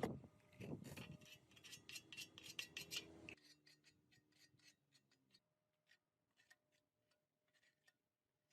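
Faint clicking and scraping, like small tool handling, for about three seconds, then near silence with a few faint ticks.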